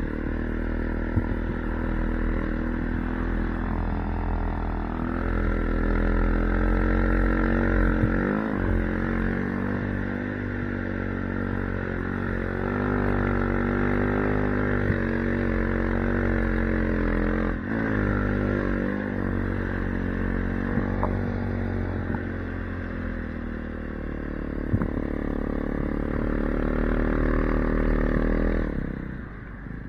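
Dirt bike engine on a Timbersled snow-bike conversion running under load across snow, its pitch rising and falling with the throttle. It drops off sharply twice for a moment and eases off near the end.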